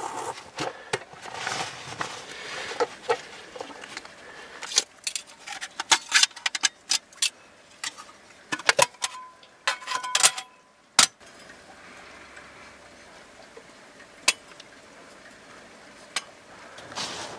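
Metal panels of a folding firebox stove clinking and rattling as it is taken out of its stuff sack and set up: a run of sharp clicks and taps, one ringing briefly, with fewer clicks near the end.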